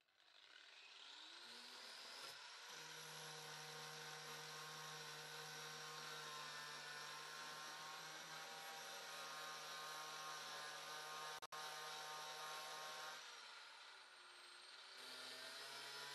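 Angle grinder with a flap disc spinning up over the first couple of seconds, then running at a steady pitch. Near the end its pitch sags for a second or two and then recovers, as the disc grinds rust off the steel wheel arch back to bare metal and throws sparks.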